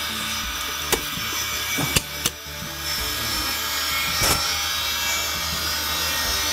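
Ferguson Videostar 3V30 top-loading VCR running with its mechanism exposed: a steady, really noisy whirr from the head drum motor over a low hum. Several sharp clicks come from the tape-transport levers as they are moved by hand, about one, two and four seconds in.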